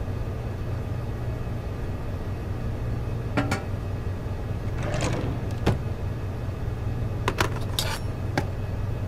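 Kitchen clatter: scattered sharp clinks and knocks of cookware and a knife against a cutting board, over a steady low hum.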